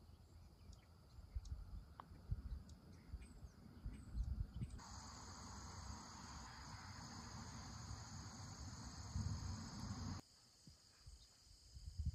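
Crickets trilling steadily outdoors, with gusts of wind rumbling on the microphone. A louder, hissier stretch of the same insect chorus comes in abruptly about a third of the way through and cuts off just as suddenly near the end.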